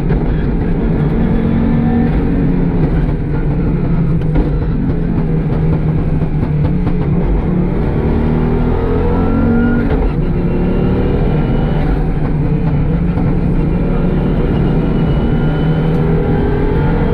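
Audi Quattro Group B rally car's turbocharged inline five-cylinder engine running steadily, its pitch rising and falling a little as the revs change.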